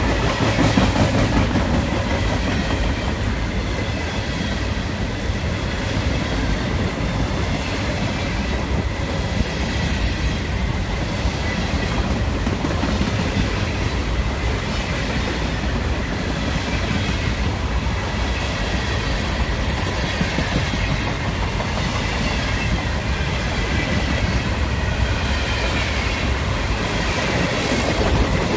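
Freight cars of a long CSX train rolling steadily past, steel wheels running on the rails, with a faint high steady whine over the rumble.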